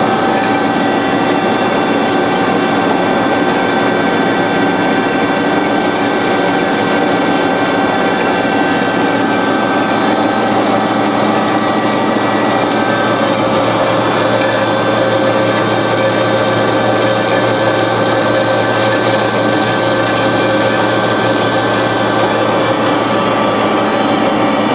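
1974 DoAll C5A automatic horizontal band saw running steadily, its 2-HP variable-speed drive and hydraulic system humming with several steady tones; a new mid-pitched tone comes in about halfway through. It runs smoothly, a sound machine.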